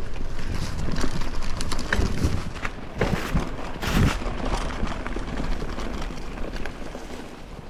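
Mountain bike rattling and clattering down a rough trail: rapid, irregular knocks and clicks over a steady low rumble, with a louder clatter about four seconds in.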